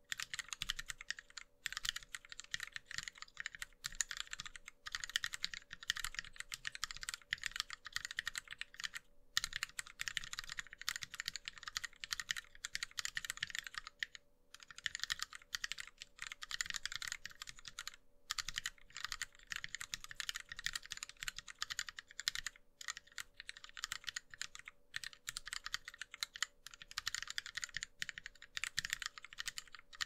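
Continuous fast typing on a Lily58 Pro split mechanical keyboard with lubed Gateron Yellow linear switches, ABS DSA blank keycaps and an acrylic case and plate, broken by short pauses every few seconds.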